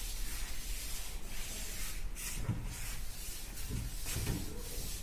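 Cloth duster wiping chalk off a blackboard in a series of rubbing strokes, with a few soft knocks against the board midway.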